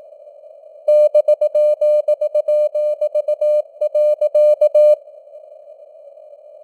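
Morse code at 18 words per minute, a single mid-pitched tone keyed in dots and dashes for about four seconds starting about a second in. Underneath runs steady simulated radio hiss around the same pitch, which carries on alone after the keying stops.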